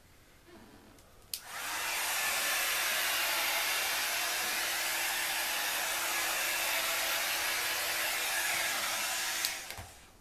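Hand-held hair dryer switched on with a click about a second in, blowing steadily for about eight seconds, then switched off with a click near the end.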